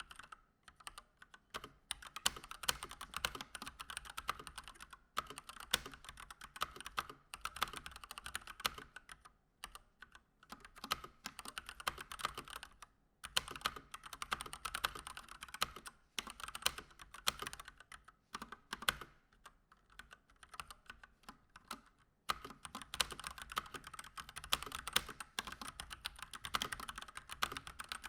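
Fast typing on a Keychron C1 mechanical keyboard with Gateron Red linear switches, stock and unmodified: a dense patter of keystrokes in runs, broken by brief pauses.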